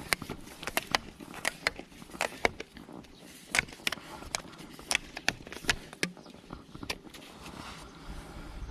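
Irregular sharp clicks and knocks: handling noise of a freshly landed bass being dealt with by hand, with a few knocks a second at uneven spacing.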